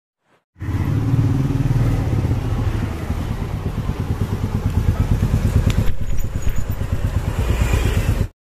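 Royal Enfield Meteor 350's single-cylinder engine running with a steady, pulsing exhaust beat. It starts about half a second in and cuts off abruptly near the end.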